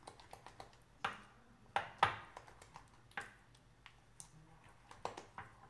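A spoon stirring thick peanut butter frosting in a glass bowl: a steady run of light clicks and scrapes, with several sharper knocks of the spoon against the glass.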